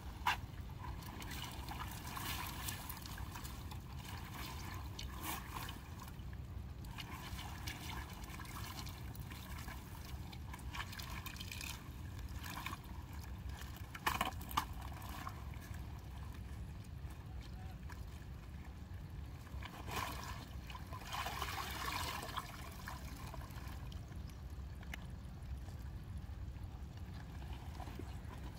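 River water dripping, trickling and sloshing off a fish-trap net as it is hauled by hand out of the water into a wooden boat, in irregular splashy spells with a couple of sharp knocks, over a steady low rumble.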